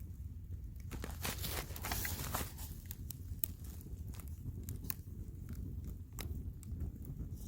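Irregular crackles, snaps and crunches of dry pine wood and twigs, with a short rustling, crunching stretch a second or two in, over a steady low rumble.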